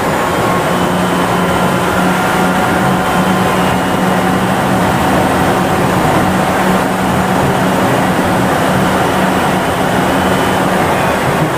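Kanazawa Seaside Line 2000-series rubber-tyred automated guideway train running at speed, heard from inside the car: a steady rumble of tyres on the guideway with a low hum and higher steady whine tones from the drive. The low hum weakens about seven seconds in.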